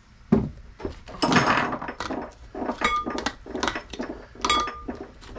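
Kitchen clatter of dishes and utensils being handled: a string of knocks and scrapes, with a few short ringing clinks.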